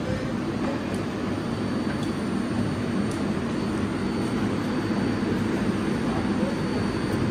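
Steady low rumble and hum of an R188 subway train on the 7 line standing in the station with its doors open, with a faint steady high whine above it. It grows slightly louder toward the end.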